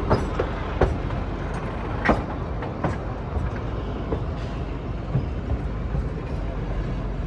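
Narrow-gauge Kalka–Shimla toy train running, a steady rumble broken by sharp irregular knocks and clanks, four louder ones in the first three seconds.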